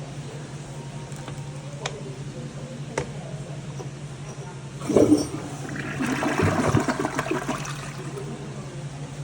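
Kohler Reach toilet flushing: a sharp burst of water about five seconds in, then a rush of water that fades over the next few seconds. Two light clicks come before it, over a steady low hum.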